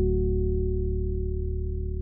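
Ambient background music: one held chord with a deep bass note, slowly fading.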